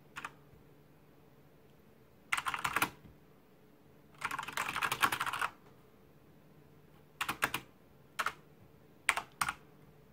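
Keys of a Corsair mechanical gaming keyboard being pressed: a single click at the start, then several short bursts of quick keystrokes, the longest lasting about a second, with single presses in between.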